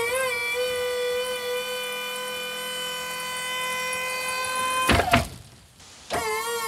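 Hydraulic pump of a horse truck's powered loading ramp whining steadily as the ramp lowers. The pitch wavers as it comes up to speed. A sharp knock about five seconds in is followed by a short near-silent gap, then the whine starts again with the same waver.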